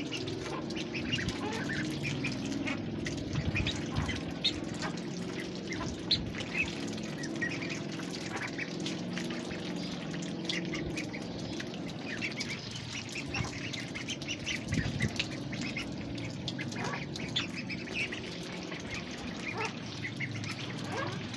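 A group of ducks quacking and calling continuously, with many short calls overlapping over a steady low din.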